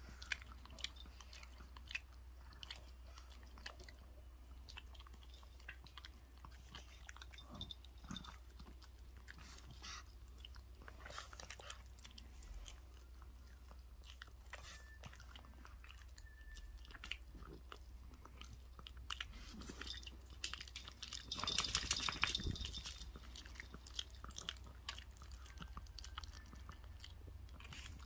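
Small dog chewing and gnawing on raw chicken held in a hand: wet biting and crunching in irregular little clicks. The chewing grows louder and denser for a couple of seconds about three-quarters of the way through.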